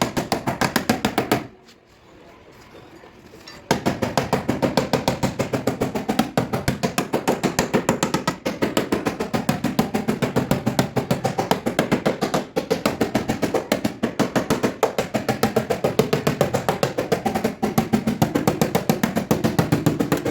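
Rapid, evenly paced hammer taps on car body sheet metal, about seven a second, pausing for about two seconds near the start and then carrying on: dents in a panel being tapped down.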